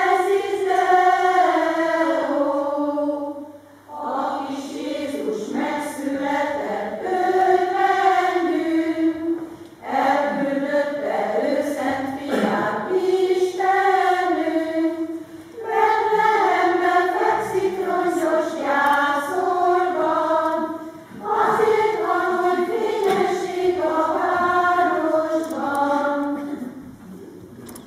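Choir of women's and girls' voices singing, in sung lines of about five seconds each with short breaths between them, fading out near the end.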